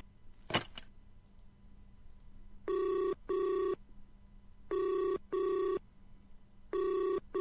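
Telephone ringback tone on an outgoing call: a double-ring cadence, two short steady beeps close together repeating every two seconds, three times, after a short click near the start.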